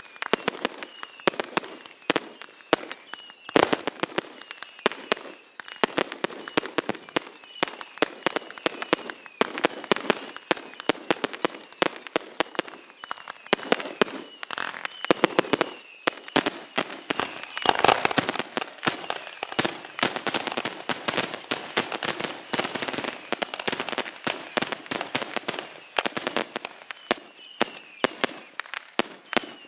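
Aerial fireworks display: a rapid, continuous run of sharp bangs and crackles from bursting shells. It grows denser and louder from a little past halfway.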